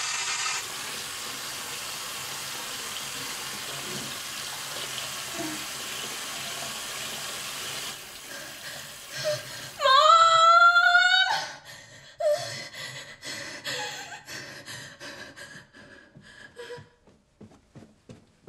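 A tap runs steadily into a bathroom sink and stops about eight seconds in. About two seconds later a woman screams, loud and rising in pitch, for about a second and a half, followed by short, broken gasping sobs that trail off.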